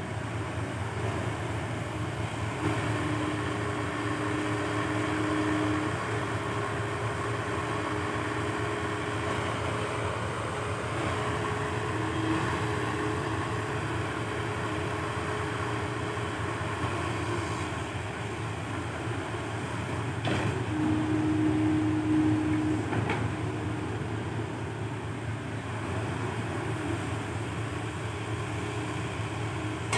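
Crawler excavator, a PC120-5, with its diesel engine running under load and a whine that comes and goes as it digs and swings soil into a dump truck. There are two short knocks, about three seconds apart, around two-thirds of the way through.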